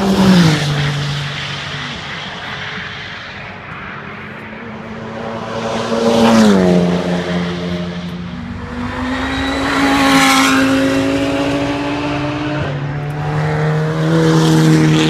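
Race cars passing one after another at speed, each engine note falling in pitch as it goes by; four loud passes.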